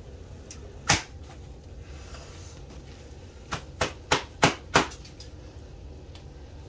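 Sharp kitchen knocks: one about a second in, then a quick run of five, about four a second, over a low steady hum.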